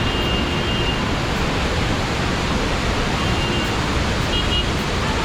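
Waterfall, a steady rush of falling water with no breaks.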